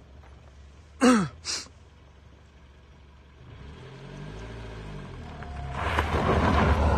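An off-road vehicle's engine revs up from a low idle in the second half, with a growing rush of tyres spinning and scrabbling on the dirt slope as it starts the climb. About a second in there are two short loud sounds, the first sliding down in pitch.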